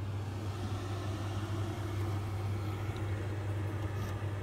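Steady low hum of machinery running aboard a yacht, even and unchanging.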